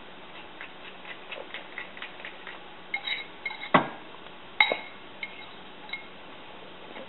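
Light scattered ticks, then a spoon clinking against a ceramic bowl several times from about three seconds in, each clink leaving a short ring, with one louder knock just before the middle.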